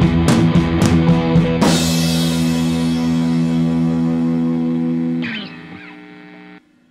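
Background rock music with distorted electric guitar and drums. The drums stop about a second and a half in, leaving a held guitar chord ringing. It drops away with a brief sliding pitch a little after five seconds in and cuts off shortly before the end.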